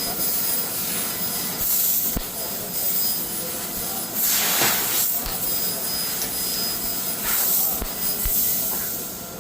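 CNC laser cutting machine running, its cutting gas hissing steadily and swelling in three surges, with a few short knocks.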